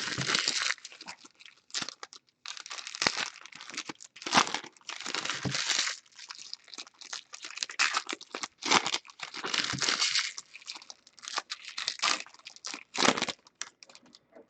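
Plastic packaging of trading-card boxes and packs crinkling and tearing in short, irregular bursts.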